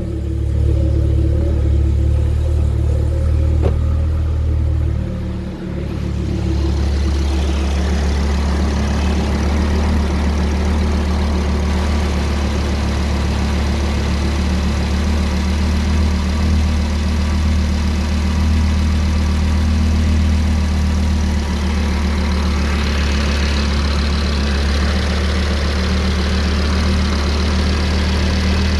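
Freshly rebuilt Audi RS3 2.5 TFSI five-cylinder (DAZA) engine idling steadily with the air conditioning on. About six seconds in, after a brief dip, a steady rushing hiss joins it and stays.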